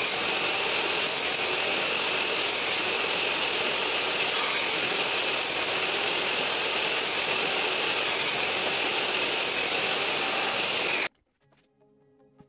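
Table saw running steadily while crosscutting a series of pine pieces to length, each cut a short bright rasp, about eight in all. The sound cuts off abruptly near the end.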